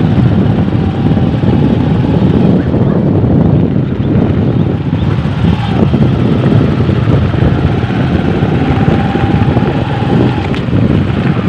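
Motorcycle running steadily at riding speed, with wind rushing over the microphone.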